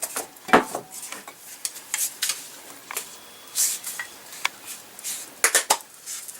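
Irregular light clicks, taps and clinks of small hard objects being handled, with a brief hiss about three and a half seconds in.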